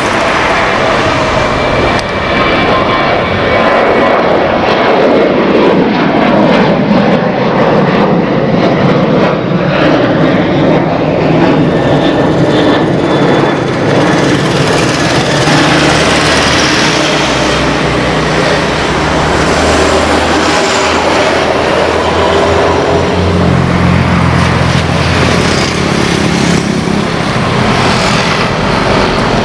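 Jet engines of a Boeing 737-800 at takeoff power as it climbs away, a loud steady rumble with a whine that falls in pitch as it passes. Near the end, the engines of an Airbus A320 at takeoff thrust as it lifts off.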